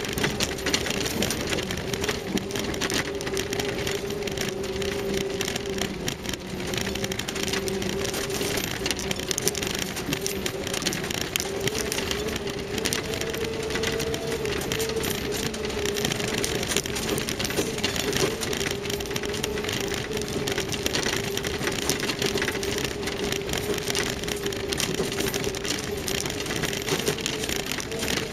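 Land Rover Series III running in a low gear over a rough stony track. The engine and drivetrain keep up a steady whine that rises a little about halfway through, over constant rattling and crunching noise.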